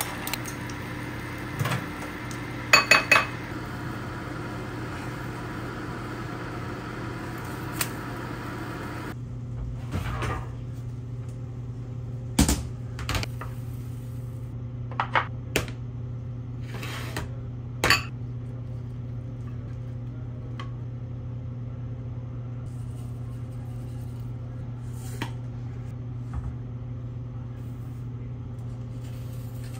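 Kitchen clatter of a spoon, a glass bowl, a small nonstick frying pan and dishes: three sharp clinks about three seconds in, then scattered knocks and clinks as the pan and dishes are handled and set down. A steady low hum runs underneath.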